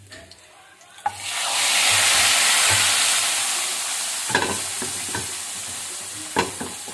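Hot tempering oil (tadka) with garlic, cumin and curry leaves poured into a pot of yogurt-and-gram-flour kadhi: a loud sizzle bursts out about a second in and slowly dies down. Two sharp clinks come about midway and near the end.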